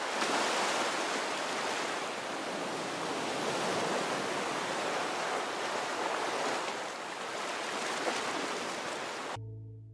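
A steady rushing noise like surf, swelling and easing slowly, that cuts off abruptly just before the end. A soft pitched chord of music starts right after it.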